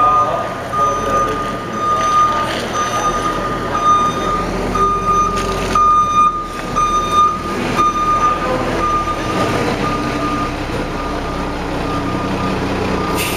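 Fire truck backing up, its reversing alarm beeping at an even pace over the running diesel engine. A short hiss of air brakes comes at the very end.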